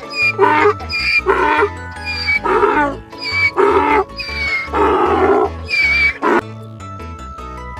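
A donkey braying: a series of rough hee-haws, each alternating between a high wheezing note and a lower honk, stopping about six and a half seconds in, over background music.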